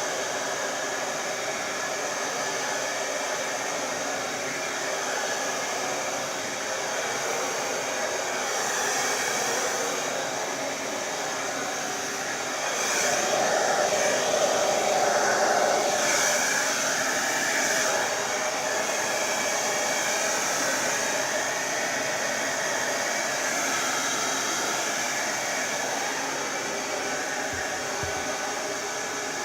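Babyliss Turbo Power 2200 hairdryer running continuously, blowing air while drying hair, with a steady rushing hiss that grows louder for several seconds in the middle.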